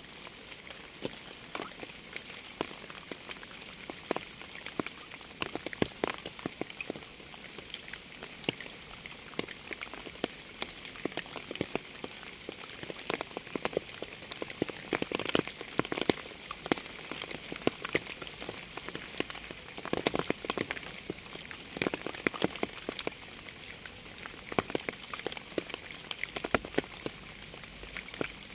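Steady rain: a constant hiss with many sharp, separate drop impacts striking a surface.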